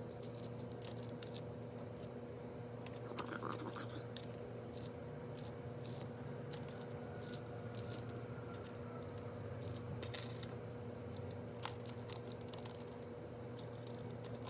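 Small seashells clicking and clinking against one another as they are picked out and set one by one onto a succulent pot's shell top dressing: a scatter of light, irregular clicks over a faint steady hum.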